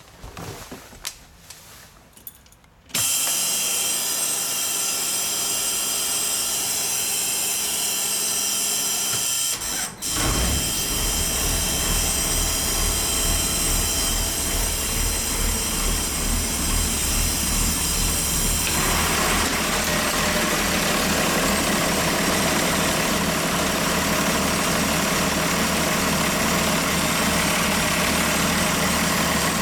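A 1989 Blue Bird bus's Cummins 5.9-litre turbo-diesel inline-six being cold-started. The starter motor whirs steadily for about six seconds. At about ten seconds the engine catches and settles into a steady diesel idle with an even throb, heard up close at the open engine compartment near the end.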